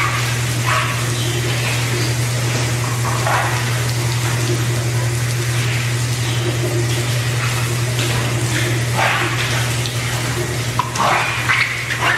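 Steady hiss of water spraying down on a young rhinoceros calf and a wet concrete floor, over a steady low hum. A few brief squeals from the calf come now and then.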